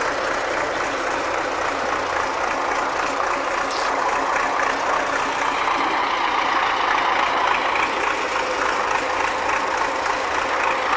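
MTZ tractor's diesel engine running steadily at idle, with one brief click about four seconds in.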